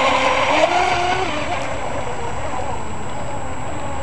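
Vortex 24 RC speedboat's motor whining at high speed, its pitch rising and falling with the throttle over the hiss of the hull on the water. The whine grows fainter after about a second as the boat moves away.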